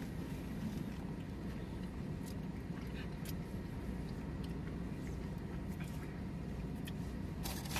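A man chewing a mouthful of burrito, with faint wet mouth clicks now and then over the steady low hum inside a car. A brief louder noise comes near the end.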